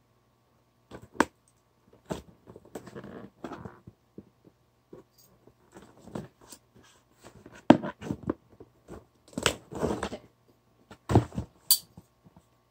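Packing tape on a cardboard box being cut open with a small sharp hand tool: irregular clicks, scrapes and short tearing and scratching sounds of tape and cardboard.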